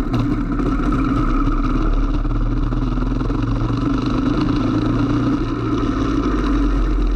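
Racing go-kart engine running under throttle as the kart accelerates out of a slow corner, heard from the kart's onboard camera, with a steady hiss of wet spray and wind.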